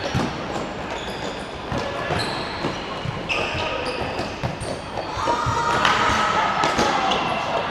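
Futsal game on an indoor hard court: the ball knocks and bounces as it is kicked and passed, and shoes give many short high squeaks. Players' shouts and calls are loudest about five to seven seconds in, all echoing in a large sports hall.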